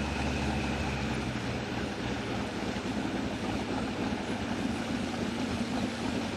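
Donzi X-18 sport boat's engine running under way, a steady drone that turns rougher and noisier about a second in, mixed with the rush of the hull through the water.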